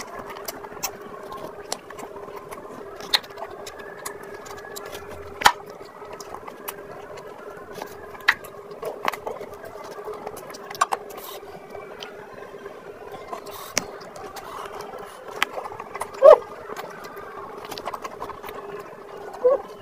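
Close-miked eating: wet chewing, lip smacks and sharp mouth clicks of someone eating mutton curry by hand, coming at uneven intervals with a louder smack about three quarters of the way through, over a steady hum.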